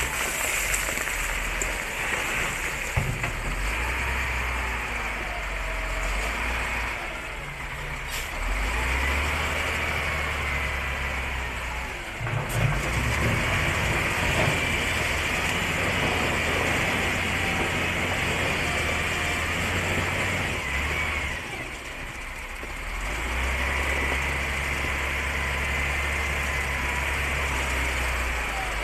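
Heavy dump truck's diesel engine running at low revs, a steady low drone that weakens briefly twice.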